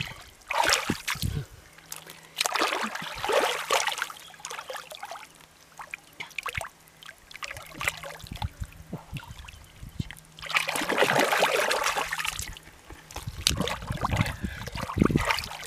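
Hands splashing and sloshing through shallow, thick muddy water while groping in the mud for catfish, in irregular bursts with small wet splatters between them. The longest burst comes about ten to twelve seconds in.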